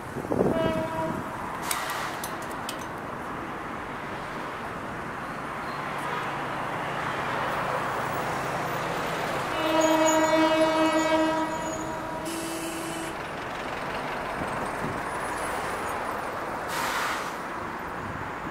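Train horn sounding: a short toot right at the start, then a single steady note held for about two seconds near the middle, with a brief second blast just after, over a steady background rumble.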